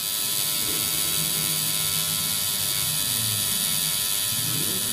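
Tattoo machine running with a steady electric buzz.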